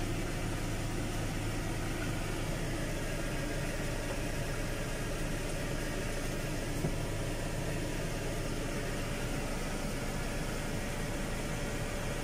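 Fendt 310 tractor's diesel engine running steadily, heard from inside the cab, with the air-conditioning fan blowing, as the tractor moves slowly.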